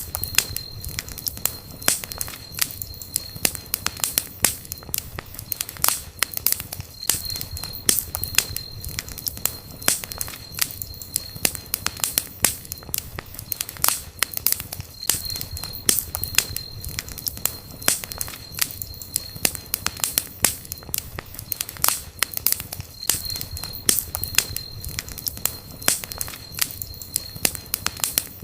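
Wood campfire burning, with dense crackling and sharp pops several times a second over the low rush of the flames. A faint thin high whistle comes and goes about every eight seconds.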